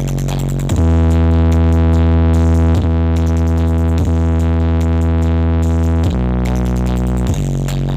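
Electronic dance music played loud through a large sound system, with long, deep synthesizer bass notes that shift pitch every second or two.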